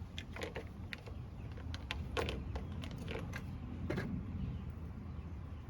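Irregular light clicks and taps of small toys being handled, thinning out after about four seconds, over a low steady hum.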